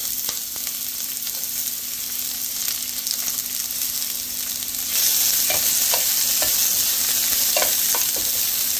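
Sliced red onion sizzling in hot oil in a nonstick pan. The sizzle grows louder about five seconds in, with a few light knocks and scrapes of a spatula stirring the onion.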